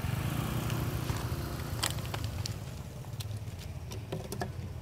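Steady low rumble, with a handful of sharp clicks and crackles starting about two seconds in. The last of these come as a monkey grabs a plastic water bottle.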